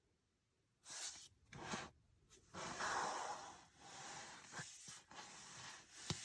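Furby Boom toy making faint breathy hissing noises: two short puffs about a second in, then a longer hiss around three seconds, trailing into softer hissing.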